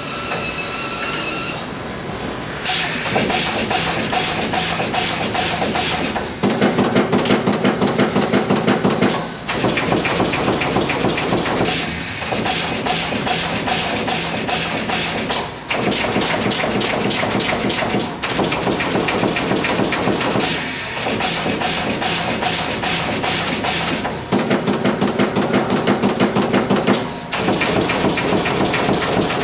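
Automatic multi-head pin inserting machine pressing pins into a circuit board, a rapid, continuous run of sharp clacks several a second. It starts about three seconds in and pauses briefly now and then. Twice a buzzing tone runs beneath the clacks for a few seconds.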